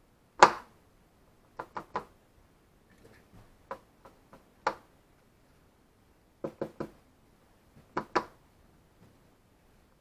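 Short, sharp knocks and taps, about a dozen at irregular intervals, from onion slices being dredged in flour and handled against the bowl and plate. The loudest knock comes about half a second in.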